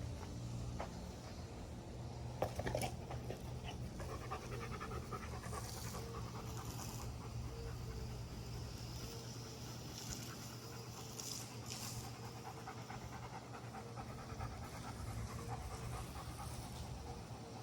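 German Shepherd panting hard and steadily after playing with the hose, with a brief clatter of clicks about two and a half seconds in.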